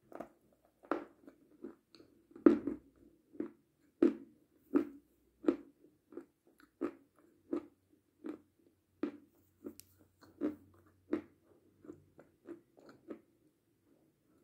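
A person chewing a crunchy chocolate sweet with the mouth closed: a steady run of crunching chews, about three every two seconds, growing a little softer toward the end.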